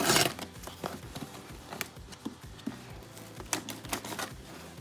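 Rotary cutter slicing through packing tape on a cardboard box: a loud rasping rip at the start, then scattered sharp clicks and taps as the blade and hands work along the tape.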